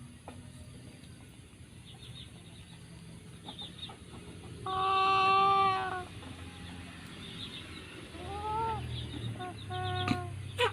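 A chicken sick with a snoring respiratory illness squawking as a feather is pushed into its throat to clean it: one long, loud call about five seconds in, then shorter rising-and-falling calls, with faint high peeps in between. A couple of sharp clicks near the end.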